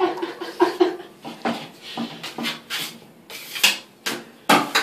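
Metal mud knife scraping and smoothing joint compound on a drywall patch, in a run of short, uneven strokes, the loudest three near the end.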